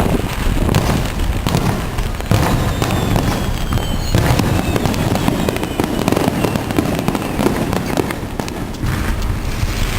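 Fireworks display: shells bursting and crackling in dense, rapid succession, with a few faint falling whistles about three seconds in.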